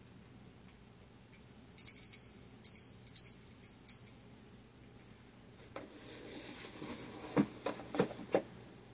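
A small hand bell rung with a series of quick shakes for about four seconds, a high clear ringing. After it, rustling and a few sharp taps as a cardboard shipping box is handled.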